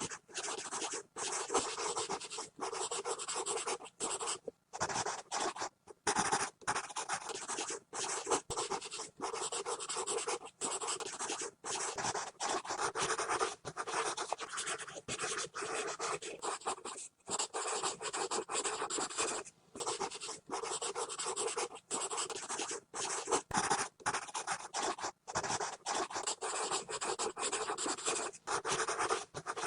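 Pencil scribbling hard and fast on paper: continuous scratchy strokes broken by brief pauses where the lead lifts off the page.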